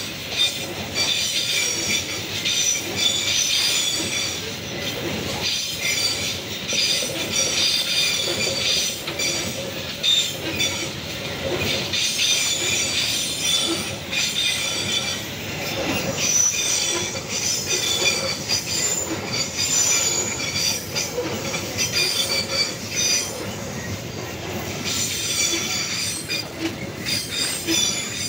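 Freight train of open-top wagons rolling past close by: a steady rumble of steel wheels on the rails with a high, wavering wheel squeal and the odd clack.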